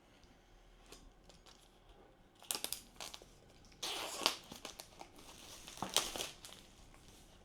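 Product packaging being opened by hand: crinkling and rustling of the wrapping in irregular bursts, starting about two and a half seconds in and loudest around the middle.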